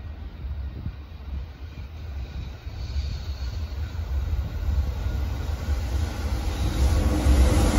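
Freight train hauled by a JR Freight EH500 electric locomotive approaching: its rumble grows steadily louder.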